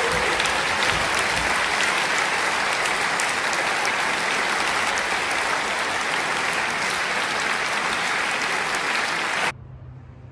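Audience applauding, a steady dense clapping that cuts off suddenly near the end.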